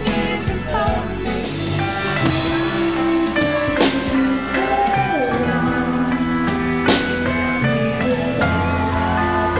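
Pop band music with drums, electric guitar and keyboard, with a cymbal crash about every three seconds.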